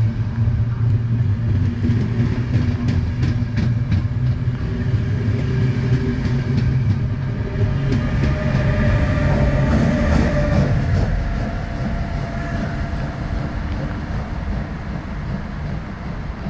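Intercity train of NS ICRm passenger coaches rolling past along the platform, wheels clicking over rail joints with a steady low rumble. The sound fades away over the last few seconds as the last coach passes and the train moves off.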